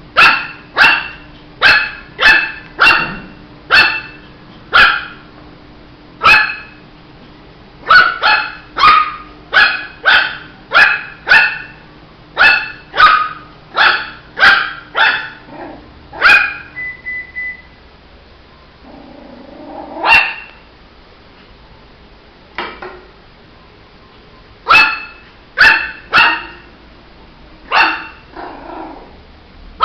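Shih tzu puppy barking in quick runs of sharp, high yaps, about two a second, with a pause of several seconds midway before the barking resumes.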